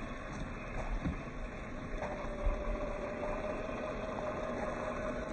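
Electric motor and gear drive of an MST CFX RC scale crawler running as it drives off-road, with a steady whine that sets in about two seconds in and a couple of low knocks.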